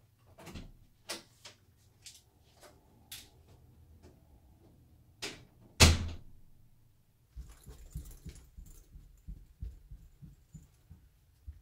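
Door handled with clicks and knocks, then shut with one loud thump about six seconds in; after that, a run of dull footstep thuds on carpeted stairs.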